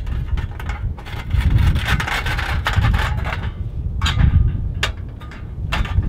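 Metal panels of a folding wood-burning stove scraping and clicking as a plate is slid into place and the stove is assembled, with a rubbing scrape about a second in and a few sharp clicks near the end, over a steady low rumble of wind.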